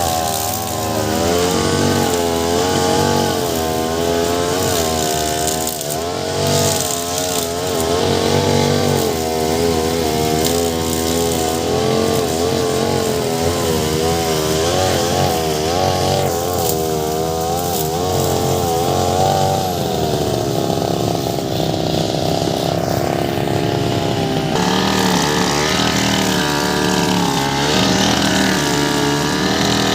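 Two-stroke brush cutter running with a steel-cable cutting head, its engine note wavering up and down as the cable bites into the grass and frees again.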